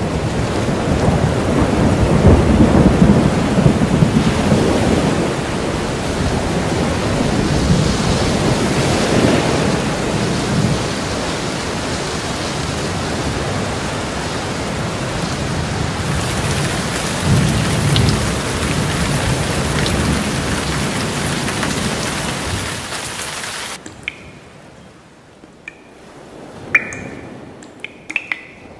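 Thunderstorm soundtrack: steady heavy rain with low rolls of thunder. It cuts off suddenly about 24 seconds in, leaving a few short drip-like plinks.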